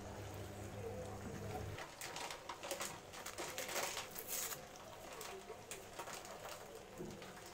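Small paper seasoning sachet crinkled and torn open by hand, a run of crackly rustles for two or three seconds, loudest just before the packet comes open. A low hum cuts off about two seconds in, just before the rustling starts.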